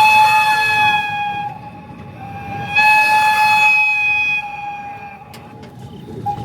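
Train whistle blowing two long blasts at one steady pitch: the first is sounding at the start and stops about a second and a half in, and the second starts near three seconds and lasts about two seconds. The moving train's low rumble runs underneath.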